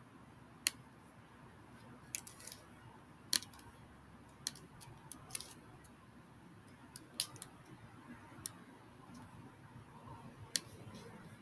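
A dozen or so sharp, short clicks at irregular intervals from someone clicking on a computer while navigating on screen, over a faint room hiss.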